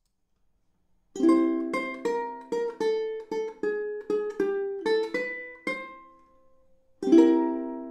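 Short tune on a plucked ukulele. After about a second of silence comes a quick run of single notes, then a brief pause, then a strummed chord near the end that is left ringing.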